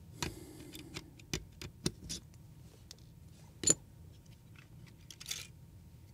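Scattered light clicks and taps of small tools against the metal parts of a camera body being taken apart, with a sharper click about three and a half seconds in and a short scrape a little after five seconds.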